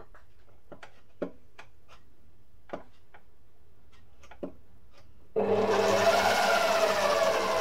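A few light clicks, then about five seconds in a stand mixer's motor switches on and runs steadily with a whirring hum as the dough hook starts kneading the bread ingredients.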